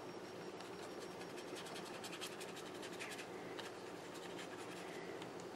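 Paintbrush scratching on paper as ink is brushed on, a quick run of faint short strokes that thins out near the end.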